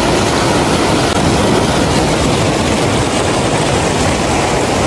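Muddy floodwater rushing through a breach in an earthen bank, a loud, steady rushing.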